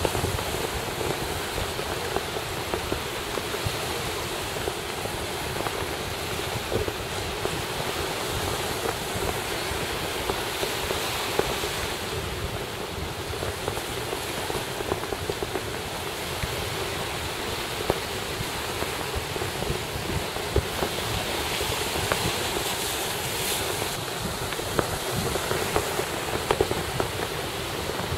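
Steady wind and surf noise, with wind buffeting the microphone in uneven gusts.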